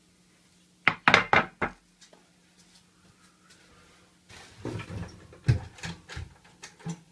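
A hand fretsaw with a metal frame clattering as it is set down on a worktable: a quick cluster of four sharp knocks about a second in. From about four seconds on, a run of lighter knocks and rattles of things being handled.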